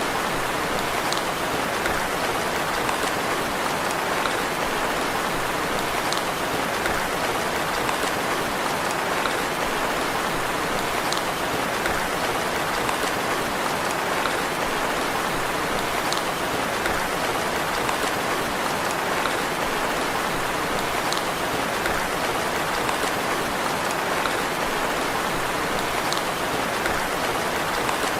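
Steady rain falling in an even hiss, with a faint tick of a single drop every few seconds.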